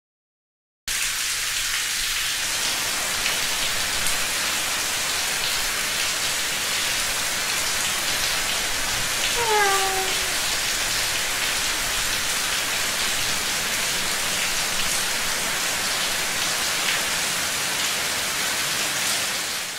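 Steady rain falling, starting abruptly after about a second of silence and cutting off at the end. About halfway through, a brief falling cry cuts through it.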